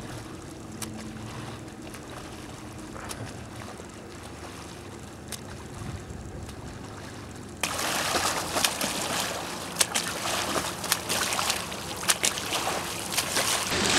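A swimmer doing front crawl in open lake water. For the first half there is only a faint, even wash of water and wind. A little past halfway it turns suddenly louder and close, with the rush of water and repeated splashes of arm strokes breaking the surface.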